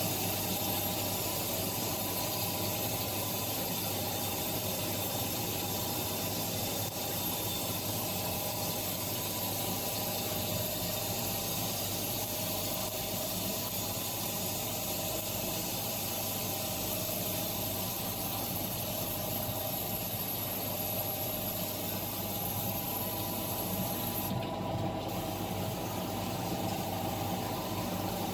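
Circular saw blade grinding machine running, its grinding wheel rubbing steadily against the saw blade, with a steady hum of several tones. The high hiss drops out briefly near the end.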